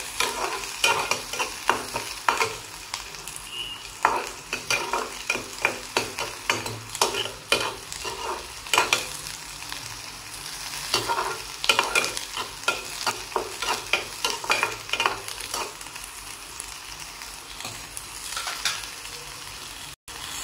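Onions, green chillies, garlic and curry leaves sizzling in oil in a kadai, while a flat spatula stirs them and scrapes and knocks against the pan many times at an uneven pace.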